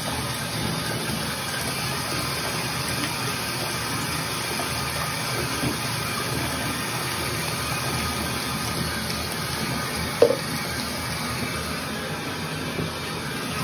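Bathtub faucet running steadily, water splashing over a brass trombone tuning slide as the soap is rinsed off. A single short sharp sound stands out about ten seconds in.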